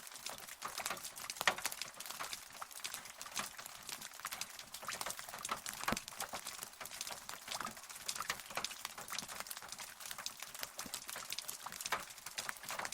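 Rain falling steadily: a dense patter of separate close drops ticking over a continuous hiss.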